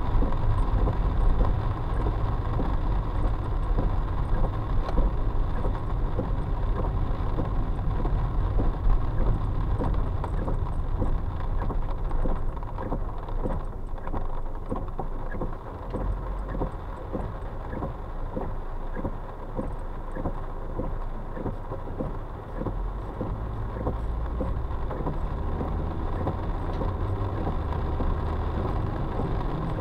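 Car cabin noise while driving in heavy rain: engine and tyres on a wet road, with raindrops tapping on the car through the middle. The rumble drops about halfway through as the car slows to a stop, then picks up again.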